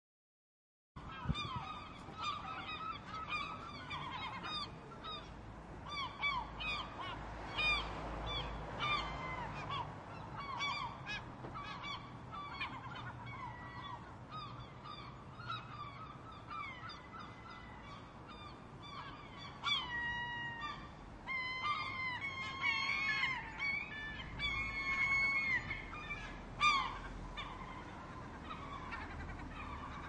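A flock of seagulls calling over one another: many short, overlapping cries, starting about a second in, over a low steady rumble. The calls grow denser and higher from about twenty seconds in.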